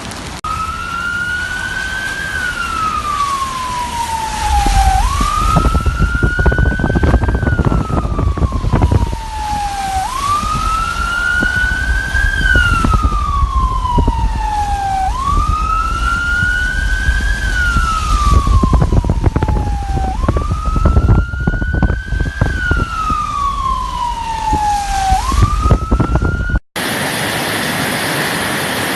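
Emergency vehicle siren wailing, rising over about two seconds and falling over about three, five times in a row, over the noise of heavy rain and a low rumble. Near the end it cuts off abruptly to a steady rain hiss.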